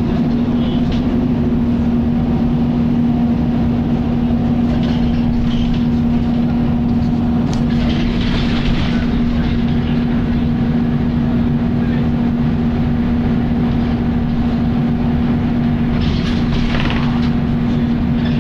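Volvo B10BLE single-deck bus running with a very loud cooling fan, a steady drone holding one low tone throughout. Two brief hissing rushes rise over it, about eight and sixteen seconds in.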